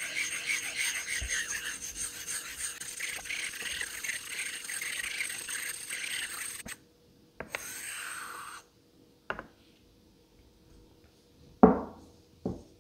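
Japanese Asano Koma nagura stone being rubbed back and forth on the Nakayama base stone to raise a slurry: a rhythmic gritty rasp of stone on stone that stops abruptly about two-thirds of the way through. A couple of light knocks follow near the end.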